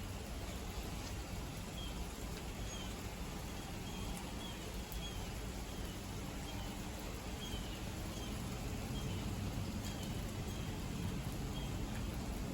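Steady heavy rain hissing, with a string of short, high chirps repeating about once a second from an animal calling through it.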